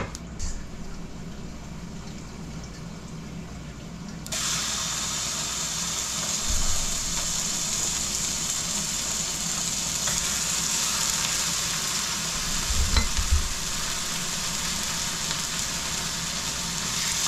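Top round steak searing on high heat in a hot oiled frying pan: a steady sizzle that starts suddenly about four seconds in as the meat goes in. A few low knocks come about six seconds in and again near thirteen seconds.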